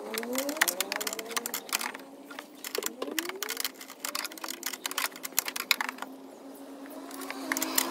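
Quick runs of light plastic clicks and taps as hands work the bulb holder and wiring in behind a car's tail light cluster. There are two busy bursts of clicking with a quieter pause between them.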